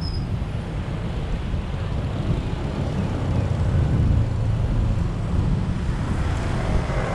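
Steady road and traffic noise from a vehicle moving through traffic, with wind buffeting the microphone and a low rumble as the loudest part.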